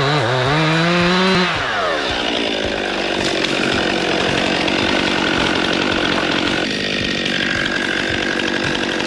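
Chainsaw engine running loud: its pitch climbs a little, drops off about a second and a half in, then holds steady at high speed for the rest of the time.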